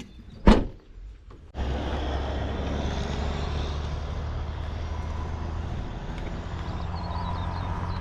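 A single sharp knock, then, about a second and a half in, a steady low rumble with a hum sets in abruptly and holds on.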